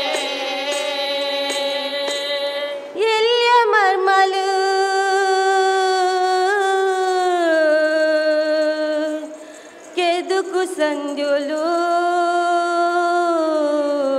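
A woman singing a slow song of long held, gliding notes, one sustained note at first and then two long phrases with a brief pause for breath in the middle.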